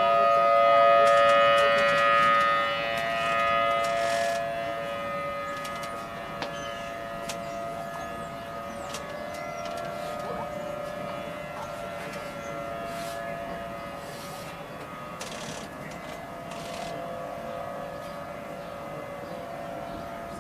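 Outdoor civil-defense warning siren sounding a steady, two-note chord: a tornado warning alert. It swells loudest in the first few seconds, then holds fainter and steady.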